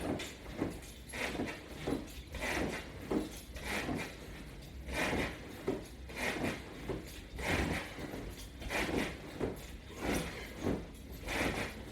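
A person doing sit-ups while holding strap hand grips: repeated short rustling and scuffing sounds of body and straps moving, in an even rhythm of about one and a half a second.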